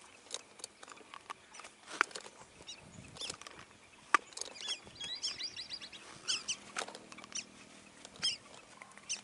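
Birds calling in short high chirps, some sliding down in pitch, with a quick run of repeated notes about five seconds in. Scattered sharp clicks and light rustles are heard throughout.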